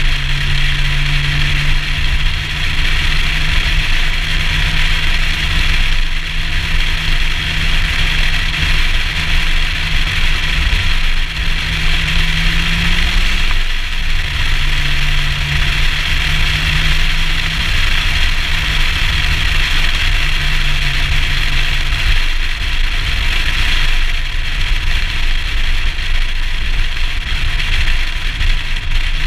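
Nissan Skyline ER34 driving along a road, heard from a camera mounted on the outside of the car: a steady engine note under loud rushing wind and road noise. The engine note breaks off briefly about halfway through, then comes back.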